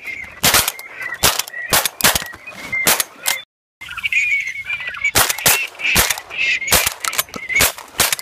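Shotguns firing in quick volleys at a flock of ducks overhead, about a dozen sharp shots from more than one gun, while the ducks keep calling. The sound drops out for a moment about halfway, then the firing resumes.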